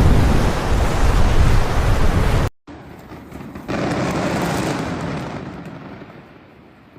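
Wind buffeting the microphone, a loud rumbling rush that cuts off suddenly about two and a half seconds in; after a brief gap a softer rushing noise swells and slowly fades.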